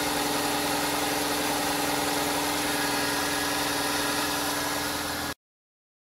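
2012 Ford Explorer's 2.0-liter EcoBoost four-cylinder idling steadily on a cold start with a freshly replaced turbocharger: quiet, with no wastegate rattle from the turbo. The sound cuts off suddenly about five seconds in.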